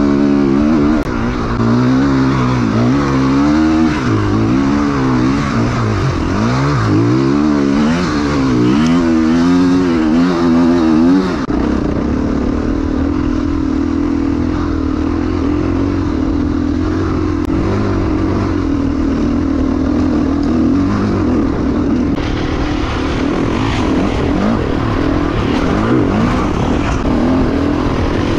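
Enduro motorcycle engine revving up and down in quick swells, about once a second, as the bike rides the trail. About eleven seconds in, the sound changes abruptly to a steadier engine note.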